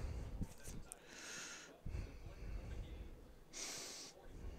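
A man breathing out heavily through his nose close to the microphone, two hissing breaths about two and a half seconds apart. There is low handling rumble underneath.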